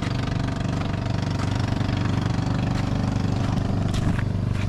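Boat engine running steadily, a low even engine drone that holds throughout.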